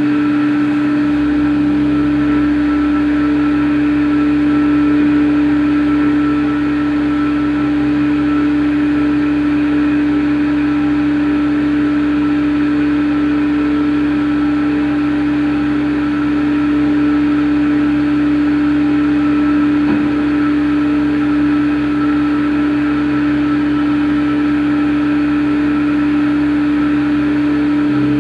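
CNC machine running: a steady, unbroken motor hum carried on one strong pitch.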